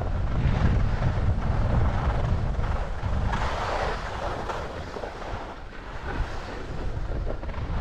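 Wind rumbling and buffeting on a GoPro's microphone while skiing downhill, with the hiss of skis sliding on snow that grows louder about halfway through.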